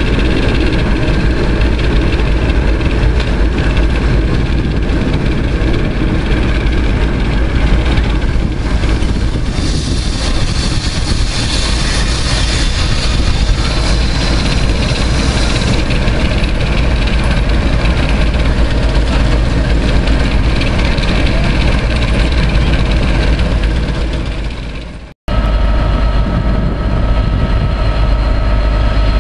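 Train running with a loud, steady heavy-engine rumble. The sound breaks off suddenly about 25 seconds in, then goes on as a steady engine hum with a few held tones.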